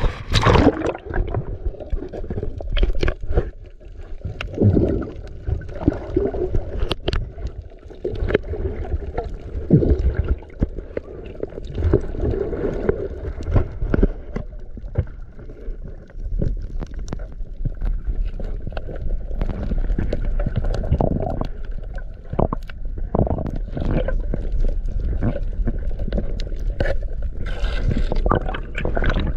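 Seawater sloshing and gurgling close to the microphone, with scattered knocks and clatter and a constant low rumble.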